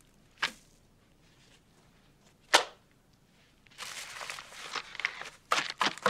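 Hands unpacking a lunch. There are two short, sharp swishes, then paper and plastic wrappings rustling and crinkling about four seconds in, and a few quick crackles near the end as a paper candy tube is handled.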